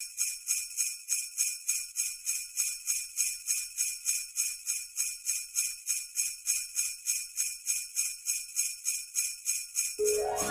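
Sleigh bells jingling in a steady, even rhythm, about three shakes a second. Pitched music comes in just before the end.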